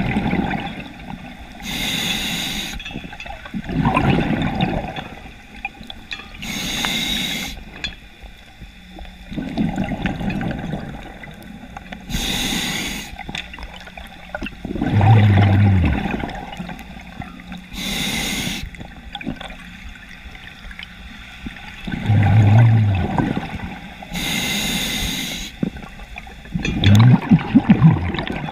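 Scuba diver breathing through a regulator underwater: a short hissing inhale, then a longer gurgling rush of exhaled bubbles, repeating about every five to six seconds.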